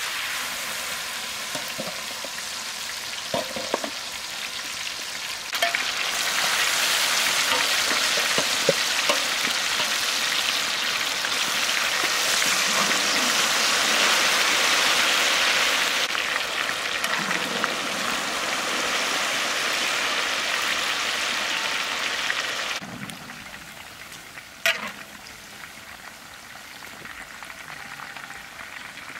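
Chicken drumsticks deep-frying in a large wok of hot oil, a loud, steady sizzle that drops to a quieter sizzle about two-thirds of the way through. A few light knocks of the metal ladle and strainer against the wok in the first seconds, and one sharp click near the end.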